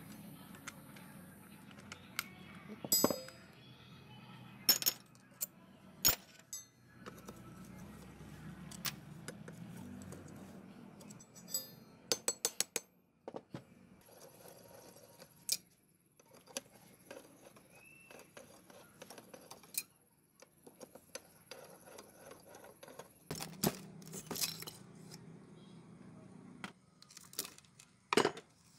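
Steel hand tools working on an old single-cylinder motorcycle engine being taken apart: scattered sharp metallic clinks and taps of a wrench and loose parts against the engine's metal, with a quick run of clicks about twelve seconds in.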